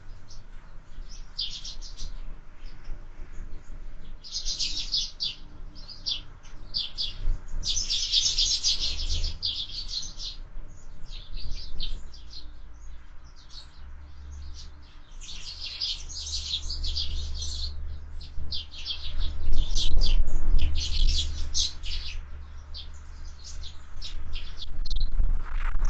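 Sparrows chirping in quick, repeated bursts throughout. Wind buffets the microphone as a low rumble, strongest about two thirds of the way through.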